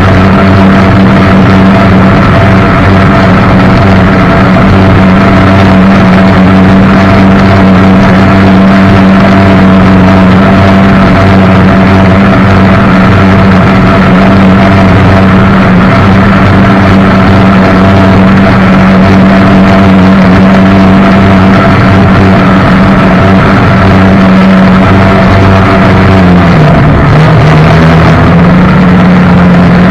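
Jet boat engine running steadily at speed, very loud and close. About 26 seconds in the revs drop, then come partly back up.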